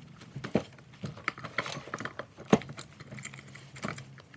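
Clicks and knocks of a Stihl 261 C-M chainsaw's guide bar and chain being handled and shifted on the opened-up saw, with the loudest knock about two and a half seconds in.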